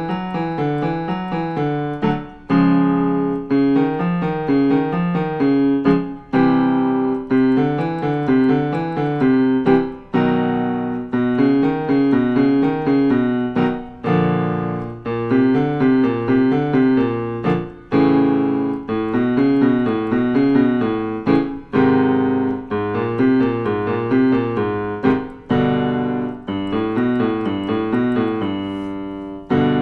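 Piano playing a vocal warm-up exercise: short note patterns repeated in blocks of about four seconds, each block opening with a struck chord.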